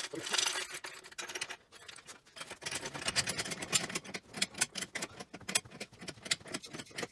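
Metal hand tools clinking and rattling, a quick run of clicks with a short lull about two seconds in.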